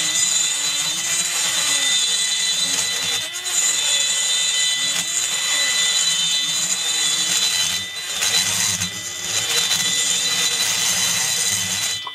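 Straight rotary handpiece spinning a burr to grind out the port of an aluminium chainsaw cylinder. It makes a steady high whine, and its lower tone wavers up and down as the burr bites and eases off. It stops right at the end.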